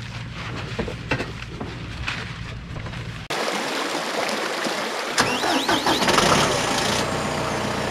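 A motor vehicle engine running with a steady low rumble, changing abruptly about three seconds in to a louder, even rushing noise, with a few high warbling chirps about two seconds later.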